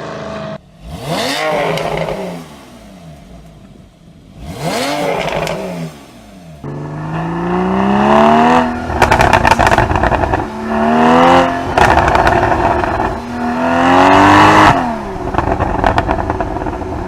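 Sports car engine and exhaust revved twice, then accelerating hard through several gears, its pitch climbing and dropping back at each upshift. Rapid crackles and pops come from the exhaust between the shifts and near the end.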